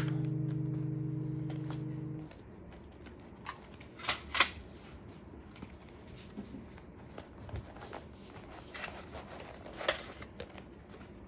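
A held music chord fading out and stopping about two seconds in, then quiet small clicks and light rustling, with a pair of sharper clicks about four seconds in and another near the end.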